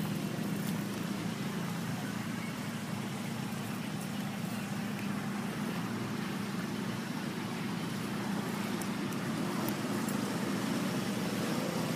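Steady background hum and rumble, even in loudness throughout, with no monkey calls standing out.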